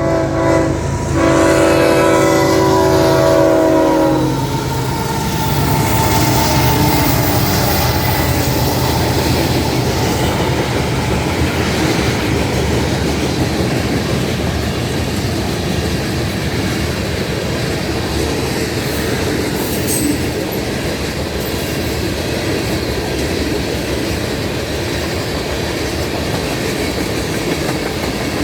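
A locomotive air horn sounds a chord of several notes, breaks briefly about a second in, and stops about four seconds in. After that the train rolls past with a steady rumble of wheels and clickety-clack over the rail joints.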